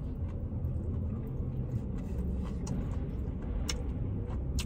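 Steady low rumble heard inside a car, with a few faint clicks near the end.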